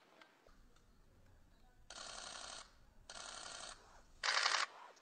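Camera shutters firing in rapid bursts, three short bursts of fast clicking about two, three and four seconds in, the last the loudest, over a faint low hum.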